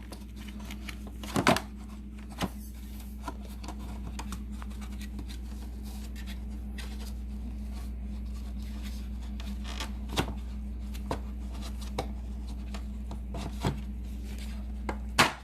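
Plastic clicks and knocks of the brush roller and its drive belt being worked into a Bissell bagless vacuum's floor head, ending in a loud snap as the roller clicks into place. A steady low hum runs underneath.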